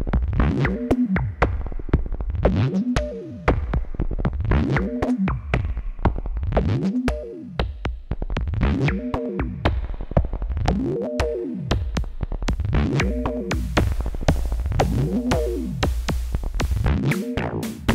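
Eurorack modular synthesizer patch playing electronic music: a pitched tone that sweeps up and back down about every two seconds over a steady deep bass and clicking drum hits. A brighter hiss layer comes in about thirteen seconds in.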